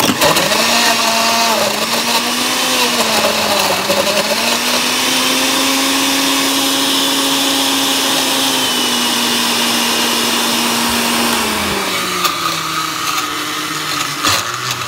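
Oster countertop blender switched on and running at speed, churning ice cubes and fruit for a smoothie. The motor's pitch wavers for the first few seconds as it chews through the ice, then holds steady, and drops lower about twelve seconds in.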